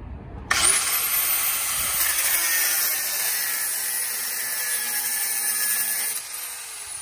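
Electric angle grinder switched on about half a second in, its whine climbing fast as it spins up, then cutting through a steel wheel stud at the hub with a steady grinding hiss. About six seconds in it is switched off and winds down with a falling whine.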